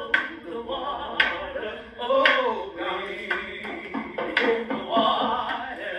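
Actors' voices on stage mixed with music, cut by several sharp clicks.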